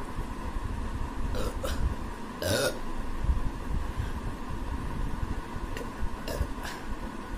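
A woman burping after drinking fizzy Sprite, the gas coming up as burps. The loudest burp comes about two and a half seconds in, with shorter, fainter ones a second before and a few seconds after.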